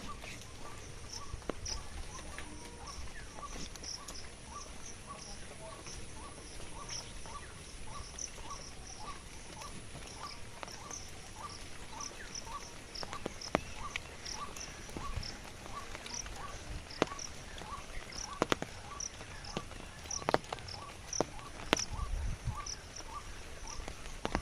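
Steady, evenly repeated short animal calls, about two a second, at a middle and a high pitch. Scattered sharp taps grow more frequent in the second half.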